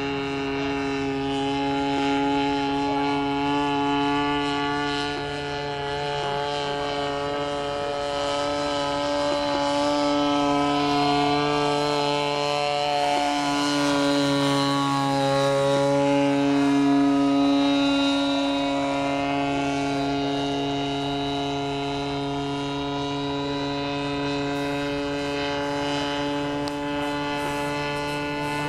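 Engine and propeller of a 67% scale radio-controlled Demoiselle model airplane in flight, a steady droning buzz. The drone grows louder and its pitch drops slightly about halfway through as the plane passes close overhead.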